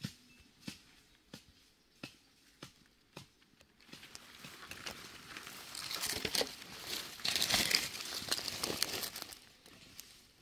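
Light clicks, roughly one every half-second, then from about four seconds in a loud crinkly rustling that builds and dies away near the end: handling noise from a knitted glove rubbing close against the phone's microphone.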